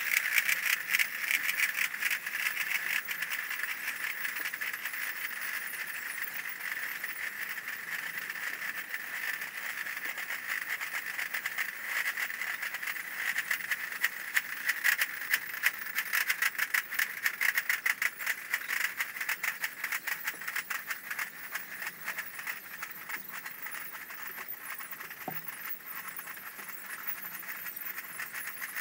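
Basel Fasnacht cliques' piccolos and drums playing: a shrill steady piccolo sound over dense, rapid drum strokes, louder for a few seconds near the middle.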